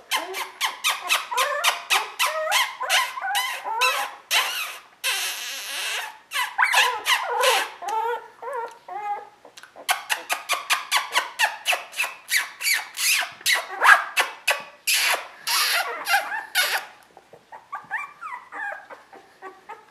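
Young Border Collie puppies squealing and yelping in a fast run of short, high calls, several a second, with a couple of longer cries mixed in. The calls thin out and grow faint near the end.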